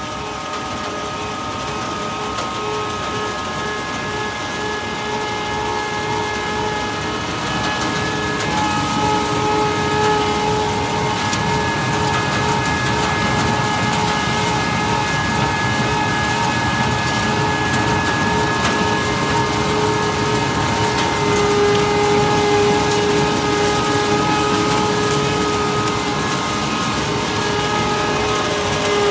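Tractor-driven sunflower-seed threshing machine running, a steady mechanical whine over a dense hiss as hand-fed sunflower heads go through the drum. It grows louder over the first several seconds, then holds steady.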